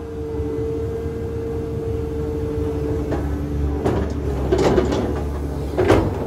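Cat 320 excavator's engine running with a steady hum, then a few harsh scraping bursts as its wide bucket works the dirt slope, the loudest about six seconds in.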